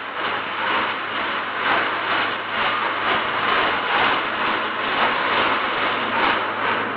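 Locomotive erecting-shop din: dense, continuous machinery noise with a soft pulsing about twice a second. It is heard on an old soundtrack that cuts off the high end.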